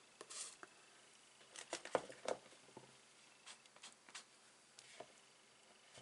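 Light handling sounds of craft supplies: a brief paper rustle near the start, then scattered sharp little clicks and taps as a thin metal heart-shaped cutting die and cardstock are moved and set down on a craft mat.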